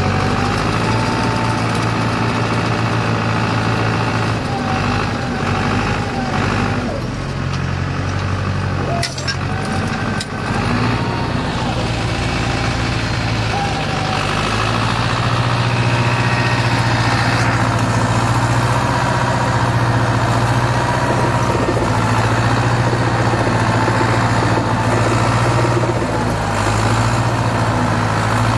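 John Deere tractor's diesel engine running steadily under load while towing another tractor, heard from inside its cab. The engine note shifts with a few clicks about a third of the way in, then holds steady and slightly louder.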